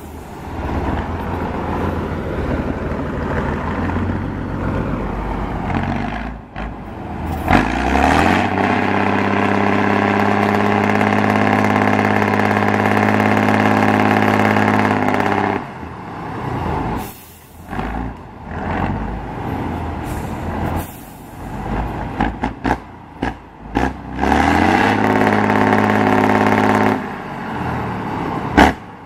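Off-road trial truck's diesel engine working hard under load through deep mud: it revs up about a third of the way in and holds high revs for several seconds, then surges on and off in short bursts, and revs up and holds again near the end.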